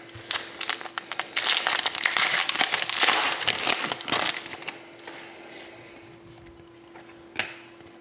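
Trading card pack wrapper and cards being handled: a few clicks, then about three seconds of dense crinkling and rustling, then quieter handling with one more click near the end.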